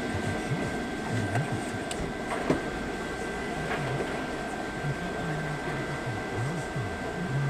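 Steady mechanical hum with a faint high whine, heard inside a car's cabin, with a single sharp knock about two and a half seconds in.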